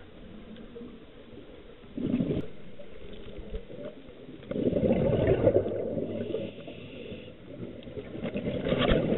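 Scuba diver breathing through a regulator underwater. A short burst of exhaled bubbles comes about two seconds in, a longer gurgling rush of bubbles around the middle, and another near the end. A soft inhalation hiss falls between them.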